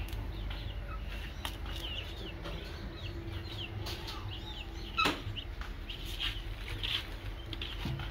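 Chickens peeping with many short, high, falling chirps. A few sharp snaps of water morning glory stems being broken by hand, the loudest about five seconds in.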